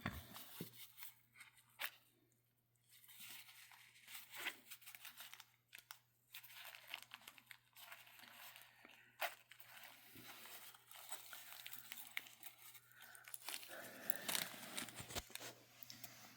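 A small sewing kit being opened and its contents handled: quiet, scattered crinkling and rustling with small clicks and a few sharper ticks, over a faint low hum.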